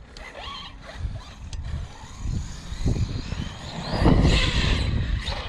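Traxxas Sledge 1/8-scale RC truck's brushless motor and drivetrain running as it drives over dirt, getting louder about four seconds in. The motor has a rough, odd noise that the owner suspects is a shot motor bearing.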